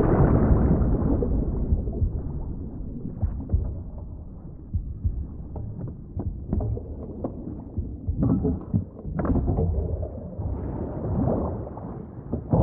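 Film sound effects of a muffled underwater rumble, loudest at the start and swelling again near the end, with scattered sharp knocks and clicks.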